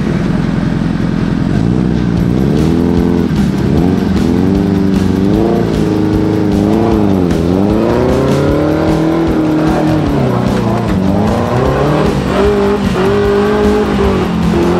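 Off-road buggy's engine revving, its pitch rising and falling again and again as the throttle is worked.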